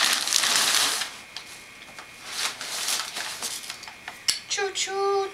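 A large sheet of brown kraft packing paper crumpling and rustling loudly for about the first second as a baby flings it, then softer rustles and taps of the paper. Near the end comes a short, high-pitched baby vocalization.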